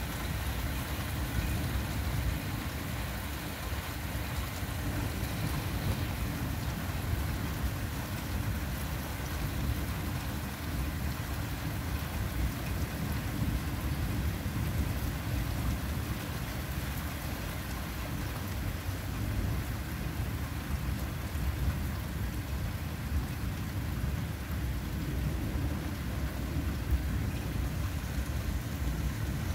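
Steady rain during a thunderstorm, with a continuous low rumble of thunder underneath.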